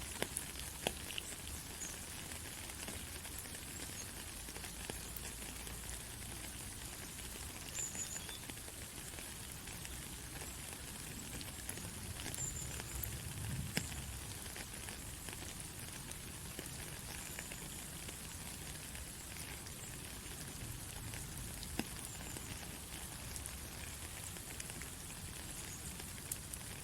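Rain falling steadily: an even hiss with scattered drips and ticks.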